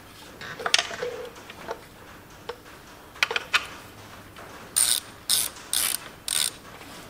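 Small hand ratchet turning a clutch-cover bolt down into the flywheel. A few scattered metal clicks and clinks come first, then four quick bursts of ratchet clicking on the back-strokes in the second half.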